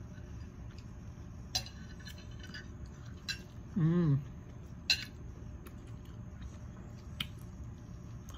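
Cutlery clinking against a plate and dishes, a handful of sharp clicks, one with a short ringing tail about two seconds in. About four seconds in comes a short hum from the eater, with a wavering pitch, the loudest sound.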